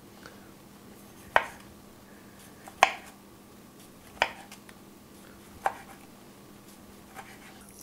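A kitchen knife slicing a tomato into rounds, each cut ending in a sharp knock of the blade on a wooden cutting board: four even strokes about a second and a half apart.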